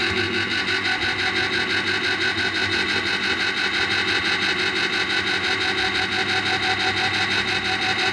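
Kenwood electric tin opener running, its motor whining steadily as it turns the tin and cuts around the lid.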